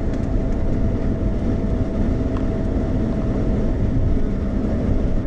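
Steady road and engine noise inside a moving car's cabin, with a faint steady whine running under it.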